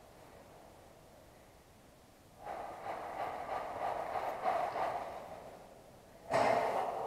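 A person breathing heavily close to the microphone: one long breath starts about two and a half seconds in and lasts some three seconds, and another, sharper one begins near the end.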